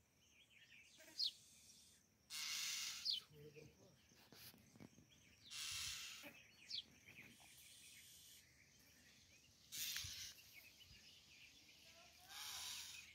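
Quiet outdoor background with a few short bird chirps and raspy, hissing noise bursts about a second long that come back every few seconds.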